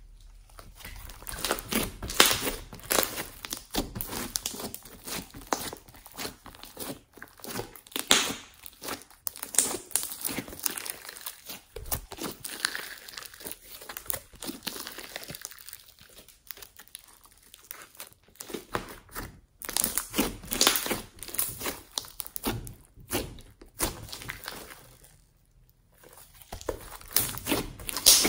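Pink fluffy slime with foam beads being stretched, folded and squeezed by hand, giving a dense, uneven run of sticky crackles and pops, with a brief pause about 25 seconds in.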